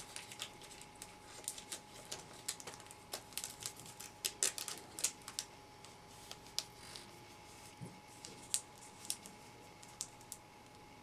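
Plastic wrapping film crinkling and crackling in irregular small clicks as it is handled and folded around a box, over a faint steady hum.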